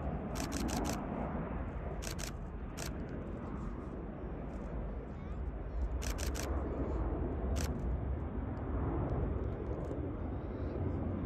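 Airbus Beluga XL's twin turbofan jet engines running as the aircraft flies past, a steady deep rumble that holds level throughout. Short bursts of rapid sharp clicks cut in several times.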